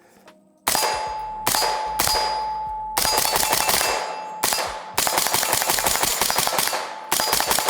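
Suppressed 5.56 AR-15 rifle (Dead Air Sierra5 silencer) firing about seven shots at uneven spacing, some close together, each followed by a ringing steel target. The overgassed rifle is burst-firing, letting off more than one round per trigger pull.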